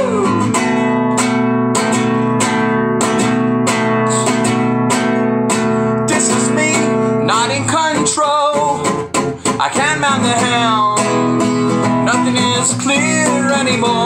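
Acoustic guitar strummed in a steady rhythm. From about halfway, a wordless sung melody with a wavering pitch comes in over it.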